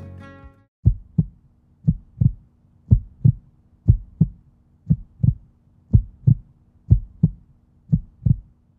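Heartbeat-like soft double thumps, about one pair a second, over a faint steady low hum.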